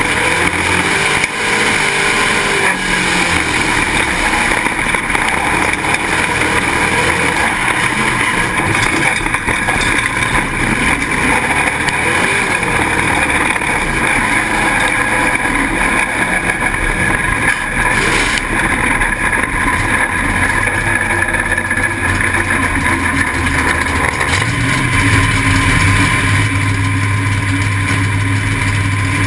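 Pro Stock dirt-track stock car's engine running hard at racing speed, heard onboard through a car-mounted GoPro, loud and steady with road and wind noise mixed in. A deeper steady hum comes in near the end.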